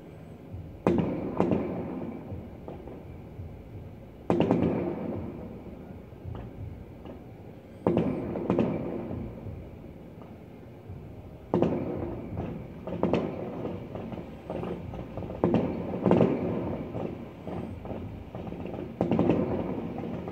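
Distant fireworks shells bursting: about ten sharp booms, several coming in pairs about half a second apart, each dying away in a rumble over a couple of seconds.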